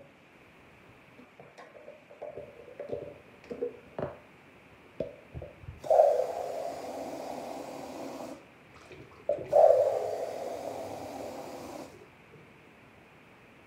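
A person blowing out two long, hissing breaths through pursed lips, each starting sharply and trailing off, the first about halfway through and the second a second or so later. Before them come a few light clicks and taps of small things being handled.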